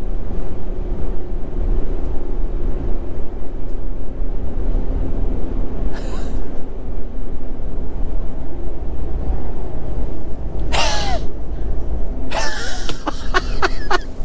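Steady low rumble of a Renault truck's engine and tyres heard from inside the cab while cruising on the highway, with a faint steady hum under it. Brief snatches of a voice on the phone call come in midway and near the end.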